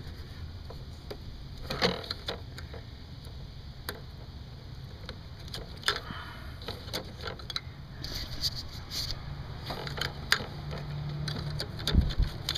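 Light scattered clicks and rustles of hands handling plastic ignition-coil connectors and wiring harness in a car's engine bay, over a steady low hum, with a dull knock near the end.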